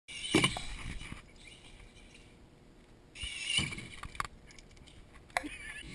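Radio-controlled car's motor whining as it speeds away, in two bursts: one at the start and one about three seconds in. A few sharp clicks or knocks come near the end.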